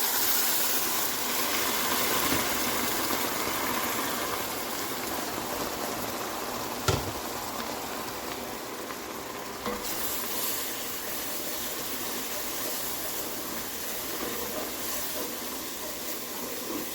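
Pot of onions and curry spices sizzling just after water has been poured in: a steady hiss that is loudest at the start and slowly eases off. There is one sharp knock about seven seconds in.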